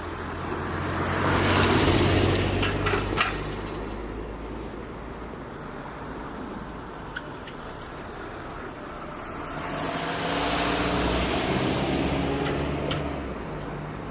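Two road vehicles pass one after the other, the first about 2 s in, with a few sharp clicks as it goes by, and the second from about 10 to 13 s in, each rising and then fading away.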